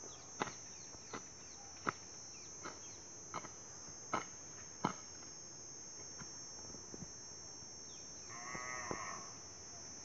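A hand hoe chopping into the dry, grassy soil around a seedling, about seven strikes at an even pace, stopping about five seconds in. Near the end comes a short animal call about a second long.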